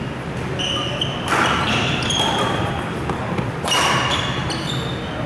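Court shoes squeaking in short chirps on a badminton court floor, with two sharp hits, one about a second in and one near the end.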